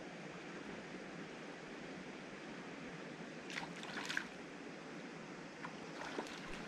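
Steady rush of creek water, with a short burst of sharp splashy sounds about three and a half seconds in.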